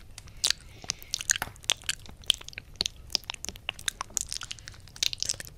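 Close, wet mouth sounds against the silicone ear of a 3Dio binaural microphone ('ear eating'): an irregular run of sharp wet clicks and smacks, several a second.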